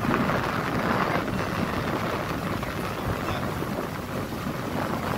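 Steady running noise of a moving auto-rickshaw, heard from inside its open-sided cabin, with wind rushing past.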